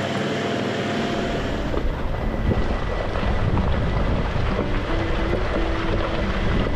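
Wind rumbling on the microphone of a camera mounted outside a 2020 Toyota Land Cruiser 76 as it drives a dirt track, with the vehicle's running noise underneath. The low rumble thickens about a second in.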